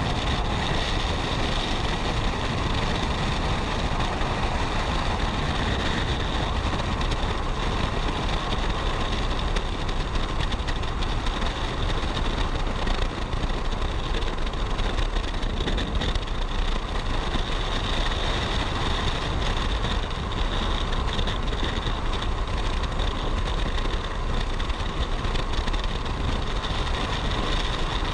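Steady rush of freefall wind over a skydiving camera's microphone, with a faint steady whistle in it.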